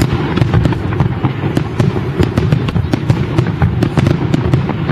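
Fireworks display: a dense, continuous run of sharp bangs and crackles from aerial shells bursting, several a second, over a steady low rumble.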